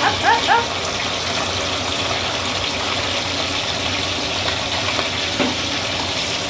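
Pieces of pork collar deep-frying in a large pot of hot oil, the oil sizzling and bubbling steadily.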